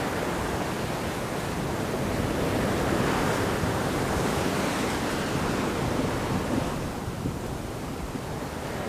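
Sea water rushing and splashing along a three-masted sailing ship under way, with wind buffeting the microphone. The wash swells a few seconds in and eases off near the end.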